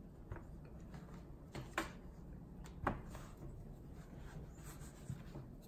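Light handling noise of plastic motor parts: the crankshaft of a Suncast Aquawinder hose reel's hydraulic motor being fitted into its plastic piston assembly, with a few light clicks and faint rubbing.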